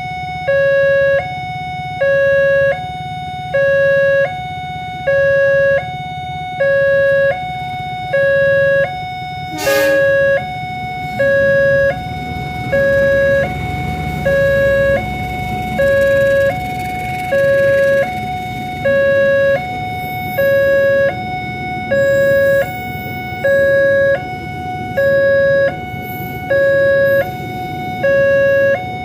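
Electronic warning siren at a railway level crossing sounding a steady two-tone hi-lo alternation, about one full cycle every second and a half, the lower tone louder. A low steady rumble runs beneath it, and there is a single sharp knock about ten seconds in.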